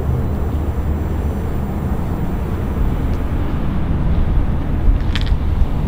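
Steady low rumble of a nearby motor vehicle running in a parking lot, with a faint click near the end.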